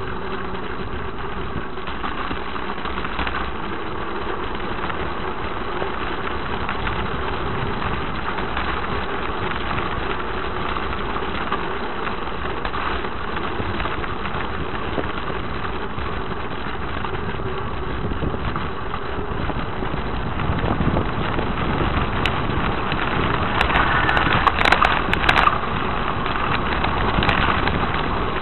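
Continuous rumbling travel noise from moving down a narrow lane. It grows louder, with sharp rattles and clicks, about twenty seconds in.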